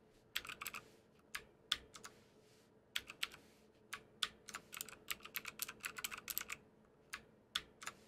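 Keys of a YEYIAN SPARK mechanical keyboard with clicky OUTEMU Blue switches being pressed. The sharp clicks come in quick, irregular runs with brief pauses between them.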